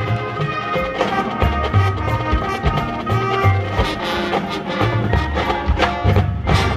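Marching band playing: brass and woodwinds holding chords over low brass notes, with percussion strikes becoming more prominent near the end.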